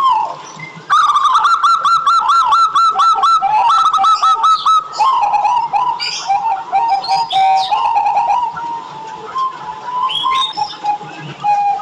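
Zebra dove (perkutut) cooing, a rapid run of short repeated notes starting about a second in, then lower, slower cooing notes that trail off near the end.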